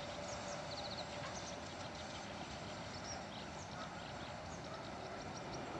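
Small birds chirping and trilling in short high calls, over a faint steady low rumble.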